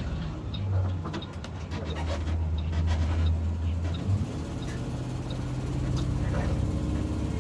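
Gasoline engine of a 2022 IC CE school bus running with a steady low drone that changes a little about halfway through; the bus has an exhaust leak from a faulty catalytic converter.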